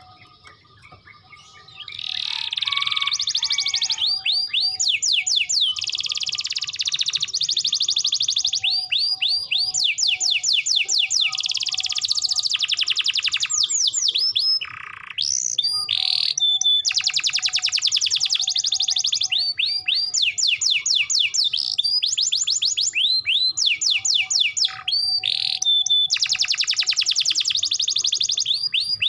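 Domestic canary singing in full song: long runs of rapid, high trills of repeated sweeping notes. The song starts about two seconds in and breaks off briefly about halfway through.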